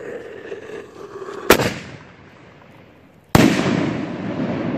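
Consumer firework artillery shell fired from a mortar tube: a sharp bang as the lift charge launches it, then about two seconds later a louder boom as the shell bursts, with a long echoing tail.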